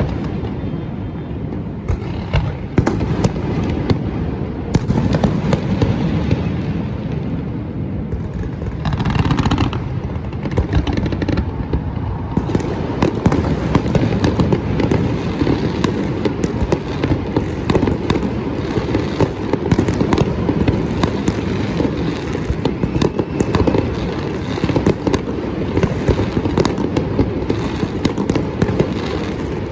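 Fireworks display: a continuous, rapid barrage of bangs and crackles with no let-up, with a denser burst of crackling about nine seconds in.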